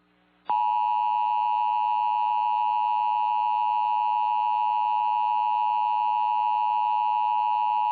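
Emergency Alert System attention signal: a loud, steady two-tone alert that starts about half a second in and holds without change, announcing a severe thunderstorm warning.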